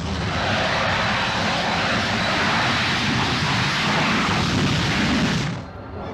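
Jet noise from a SEPECAT Jaguar's twin Adour turbofans on its takeoff from grass: a loud, steady rush that cuts off sharply near the end, leaving a fainter engine sound.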